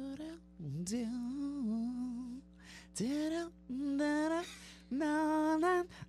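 A voice singing a short tune in several phrases, with held and sliding notes and short pauses between them, over a faint steady electrical hum.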